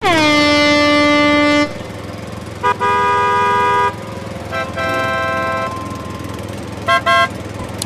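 A series of vehicle horn honks: a long honk whose pitch drops at the start, a short toot followed by a longer honk, another toot and honk, then two quick toots near the end. A steady low engine hum runs underneath.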